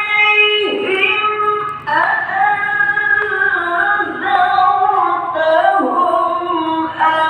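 A single voice chanting Quran recitation in long, held melodic phrases that slide up and down in pitch.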